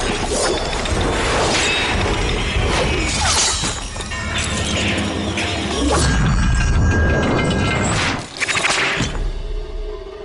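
Cartoon soundtrack music mixed with clattering, rattling metal chain effects, as a spiked iron ball on a long chain whips past. The chain noise is dense and busy, then drops away a little after eight seconds.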